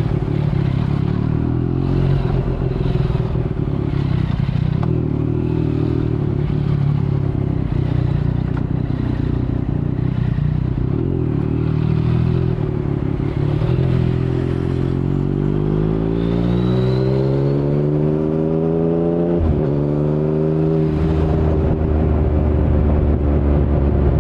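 2019 Yamaha MT-09's 847 cc inline-three engine through an Akrapovic carbon full-system exhaust with no dB killer. For the first dozen seconds or more it runs at low revs with small throttle changes, then pulls in one long rising climb. The pitch drops sharply at an upshift about three-quarters of the way through, rises briefly again, and settles into a steady cruise near the end.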